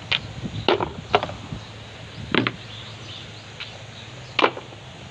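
Plastic vent caps on golf-cart lead-acid batteries being handled and knocked against the battery tops: several sharp clicks and knocks at irregular intervals. The cells are being opened to top up with battery water.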